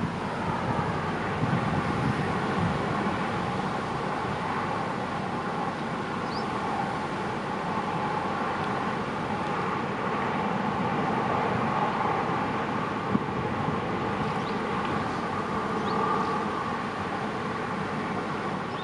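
Inland barge's engine running steadily: a continuous drone with faint humming tones that waver slightly in pitch.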